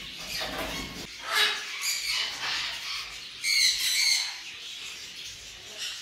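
Short hissing squirts from a trigger spray bottle about a second and a half and two seconds in. These are followed by a galah cockatoo's harsh screech a little past halfway.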